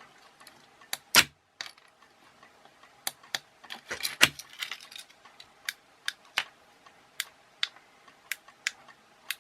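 A run of sharp mechanical clicks from a jumper being pulled and refitted on a remote relay board and the remote-switched car door lock actuator working its sliding bolt. The loudest snap comes about a second in, followed by a brief clatter and then single clicks roughly every half second to a second.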